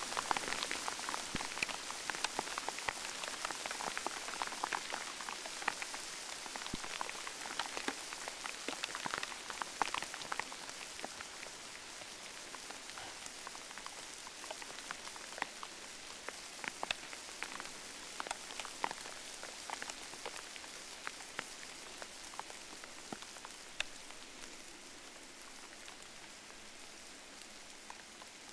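Steady rain falling, with many scattered close drop ticks, growing slowly fainter.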